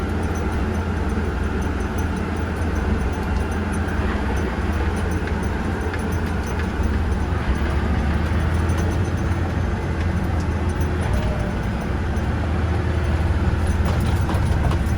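Farm tractor pulling a grain cart, its engine running steadily with a deep, even drone.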